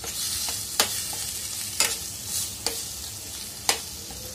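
Metal spatula stirring boiled potato cubes through masala paste frying in a stainless steel pan: a steady sizzle with a sharp clack of the spatula against the pan about once a second.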